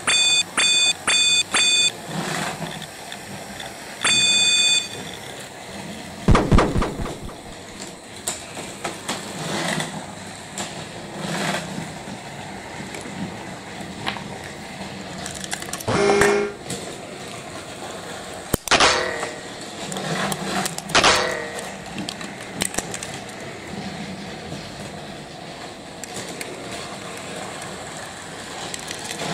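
Four quick electronic beeps, then one longer beep, followed by scattered clicks, knocks and light clatter; the loudest is a knock about six seconds in.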